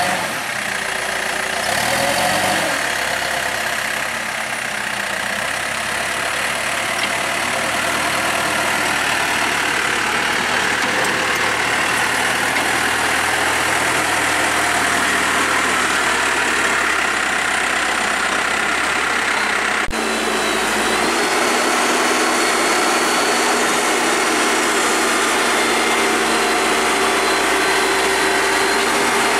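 Vehicle engine running steadily. About two-thirds of the way through, the sound changes abruptly to a slightly different steady engine tone.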